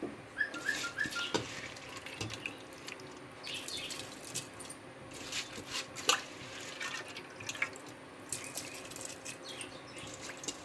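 Spiced water boiling in an open aluminium pressure cooker, bubbling with irregular pops and small splashes.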